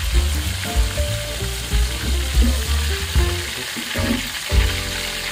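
Blue marlin steak pieces sizzling steadily as they fry in hot oil in a wok, with the scrape and knock of a slotted spoon turning them.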